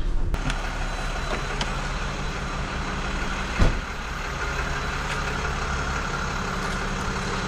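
Tow truck engine idling steadily, with one sharp thump about halfway through.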